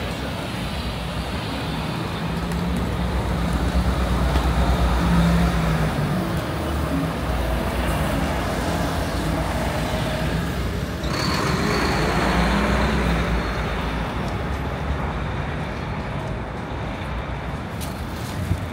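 City street traffic, with a heavy vehicle's engine running close by and growing louder a few seconds in. About halfway through a sudden hiss joins the rumble.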